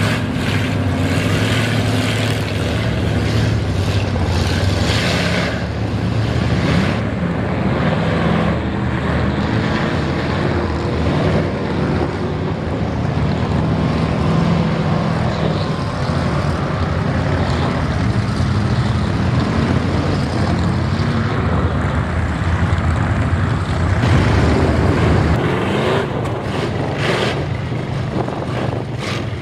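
Mud trucks' open-header V8 engines running hard as they dig through the mud pit, the loud engine note rising and falling.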